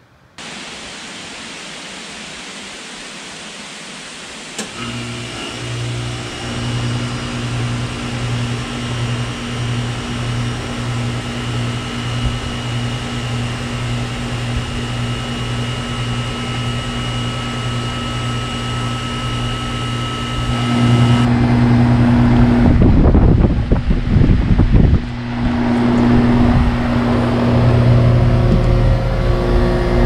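Goodman GSH13 heat pump starting up in heat mode for the first time in months: a click about four or five seconds in, then the steady hum of the running compressor and fan. A couple of seconds past the two-thirds mark, strong wind gusts buffet the microphone.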